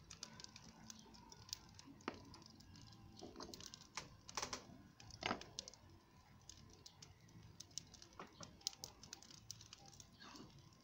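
Faint, irregular light clicks and taps of catfish being handled and pierced with a small hand piercer on a sheet, and of fish being picked from a metal basin.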